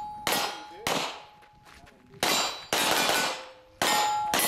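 Pistol-caliber carbine firing about six sharp shots at an uneven pace, with steel targets ringing after the hits.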